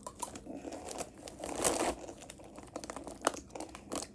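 Snack packaging being handled and crinkled, with scattered small clicks and a louder rustle about one and a half seconds in.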